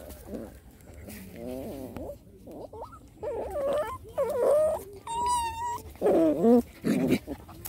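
Puppies play-fighting, giving a string of short growling and whining calls, with one higher, drawn-out whine about five seconds in.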